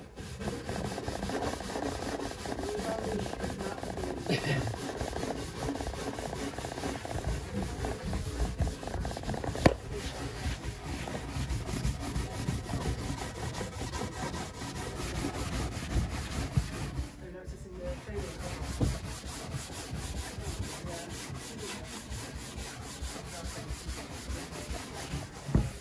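An old shoe brush buffing wax into a charred (shou sugi ban) wooden worktop with fast back-and-forth scrubbing strokes. There is one sharp knock about ten seconds in and a short pause about two-thirds of the way through.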